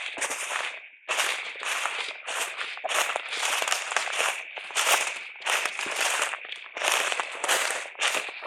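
Footsteps crunching through dry leaf litter on the forest floor, about two steps a second, as someone walks at a steady pace.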